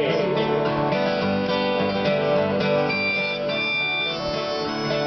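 Two acoustic guitars playing an instrumental break between sung verses, strummed and picked.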